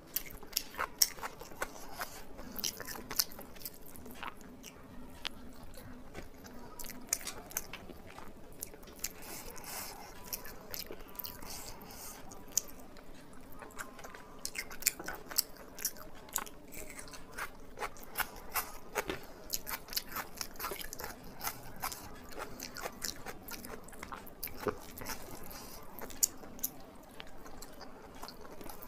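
A person eating a rice-and-curry meal close to the microphone: steady chewing with many irregular sharp wet smacks and crunches.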